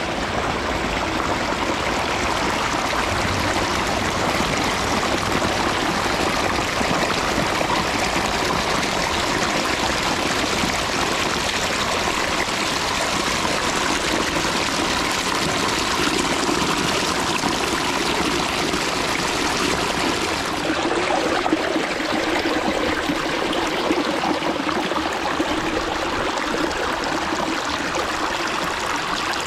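Backyard pondless waterfall running, water splashing and trickling steadily over rocks.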